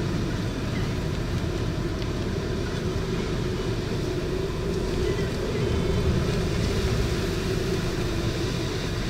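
Strong wind blowing steadily, with a dense low rumble and a faint steady hum throughout.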